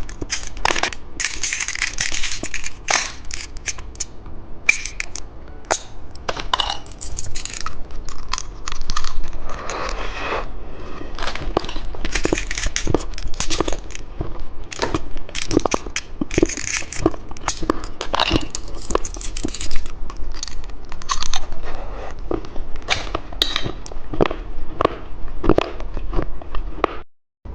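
Close-up crinkling and tearing of the plastic packaging of a bicycle-shaped novelty candy, with many sharp clicks and crunches.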